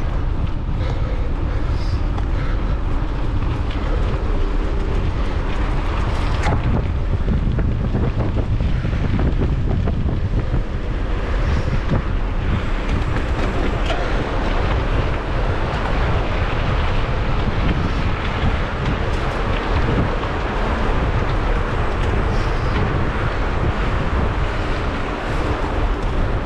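Wind buffeting the microphone over the steady rumble of a hardtail mountain bike being ridden. The rolling noise grows grittier from about halfway.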